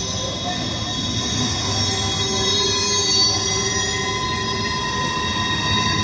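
Container freight train rolling past, its wheels squealing in several steady high-pitched tones over a continuous low rumble.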